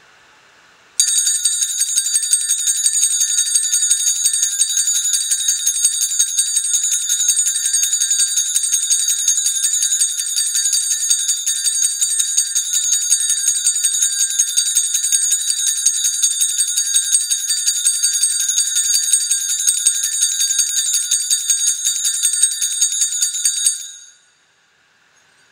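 Altar bells (a hand-held set of small sanctus bells) shaken continuously in a bright, high jingling, marking the benediction blessing with the Blessed Sacrament in the monstrance. It starts about a second in and stops near the end.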